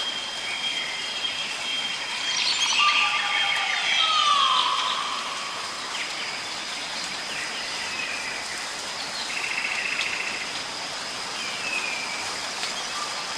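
Steady rain falling, with several birds chirping and calling over it in short falling whistled notes. The loudest calls come about three to four seconds in.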